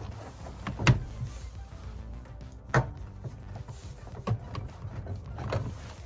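Background music under a few sharp knocks and clicks from unbolting and pulling a car door armrest, the loudest about a second in and near three seconds in.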